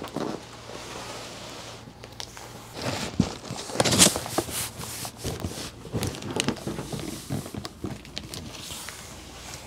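A large cardboard shipping box being lifted, carried and handled, its cardboard rustling and bumping, with a cluster of louder knocks and scrapes about four seconds in, along with footsteps.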